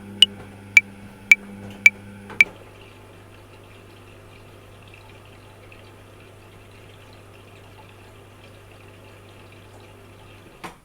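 Metronome clicking at 110 bpm: five clicks, the first higher-pitched as the accented downbeat of a 5/4 bar, then the clicks stop about two and a half seconds in. Under them a washing machine runs with a steady low hum and water noise, which ends with a click near the end.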